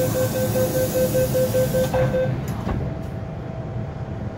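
MTR M-Train door-closing warning: a rapid run of beeps at one steady pitch, about four or five a second, over a hiss. The beeping stops about two seconds in, and the sliding doors shut with a knock about half a second later.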